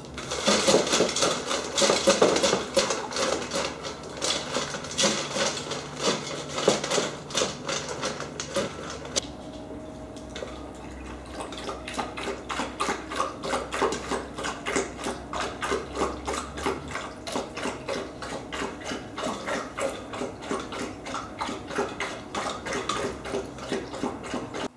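Bernese mountain dogs lapping water from stainless steel bowls, a quick steady rhythm of about three to four laps a second. The lapping is louder and busier in the first several seconds.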